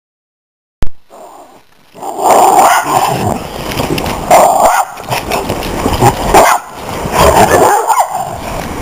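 Miniature schnauzers and a Weimaraner play-fighting, with growling and barking in loud, irregular bursts starting about two seconds in. A sharp click comes a little under a second in.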